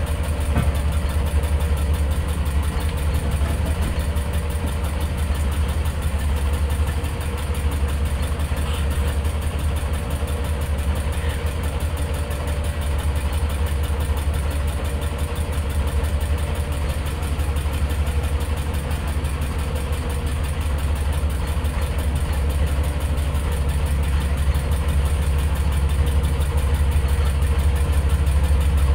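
Boat engine idling steadily, a low hum with a fast, even firing beat.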